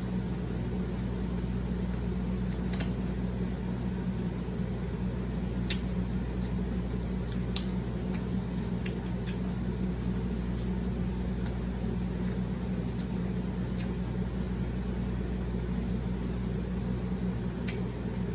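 Steady low mechanical hum of a running fan, with a few faint, sharp clicks of eating scattered through it.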